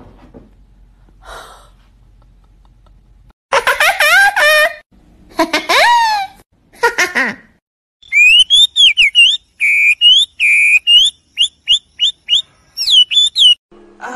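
A red avadavat (strawberry finch) singing: a quick run of short, clear, high whistled notes, some sliding down and some up, in the second half. Before it, a few loud squeaky cries that slide up and down in pitch.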